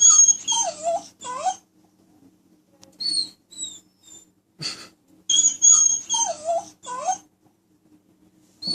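Recorded dog whines and yelps played through a phone speaker, the same short clip of about two seconds heard twice, with a few short high falling whines between the two plays.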